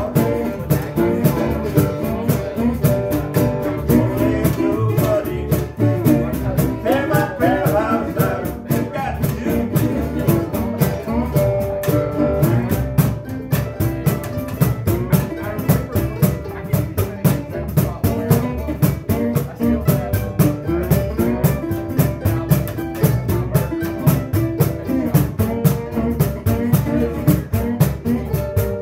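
Small acoustic band playing live: upright double bass and guitars over a cajon keeping a steady beat.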